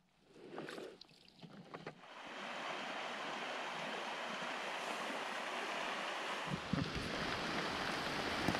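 A steady rush of water sound starts about two seconds in, after a few faint clicks. Low rumbling thumps join it near the end.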